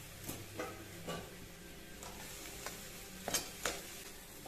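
A metal spatula stirring mashed potato filling in a steel kadhai, giving a few short scrapes and knocks against the pan, the loudest two near the end, over a faint sizzle from the mixture in the hot oil.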